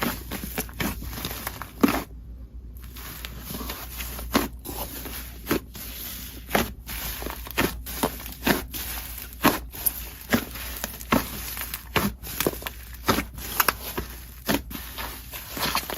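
Slime being kneaded and squished by hand, giving irregular sticky clicks and pops, one or two a second, over a soft crackle.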